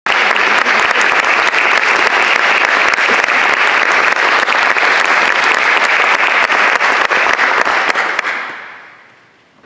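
Audience applauding, a dense, steady clapping that dies away about eight seconds in as it ends.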